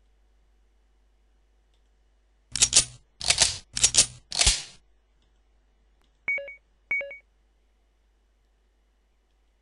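Computer sound-effect clips played back one after another: a quick run of four short noisy, clattering bursts, then two short electronic beeps about half a second apart.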